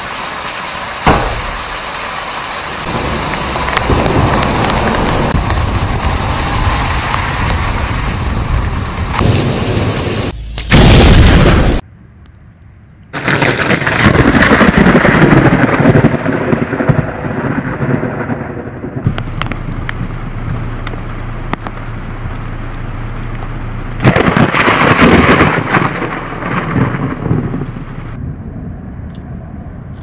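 Thunderstorm: heavy rain rushing steadily, broken by sudden thunderclaps and rumbles. The loudest crack comes about eleven seconds in, and there is a brief drop in level just after it, with another loud burst of thunder near the end.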